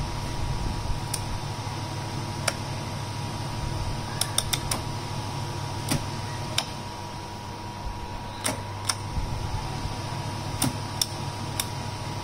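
Control knobs on an electric convection oven being turned, giving about a dozen sharp clicks at irregular intervals, including a quick run of four clicks about four seconds in. A steady machine hum runs underneath.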